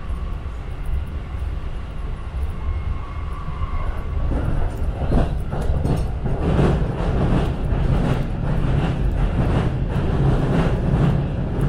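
JR Tokaido Line electric train running at speed, heard from inside the carriage: a steady low rumble with a faint steady whine. From about four seconds in, the wheels clatter louder in a regular rhythm, about two beats a second.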